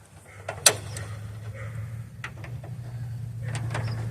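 A breaker bar and socket working on a bolt: one sharp metallic click about a second in, then a few lighter clicks. A low steady hum sets in with the first click and grows slightly louder.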